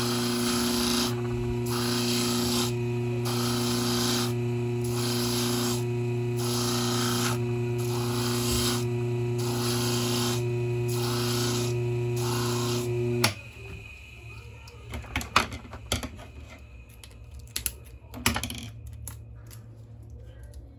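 Bench-mounted electric grinder's motor running with a steady hum while a black keychain wheel is held against its grinding drum, the sanding noise swelling about once a second as the part is worked. The motor cuts off suddenly about 13 seconds in, followed by a few light clicks and knocks of the part being handled.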